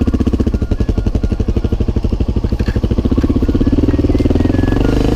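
Enduro motorcycle engine running at low revs with a distinct pulsing beat as the bike moves off along a dirt track, picking up revs about three seconds in.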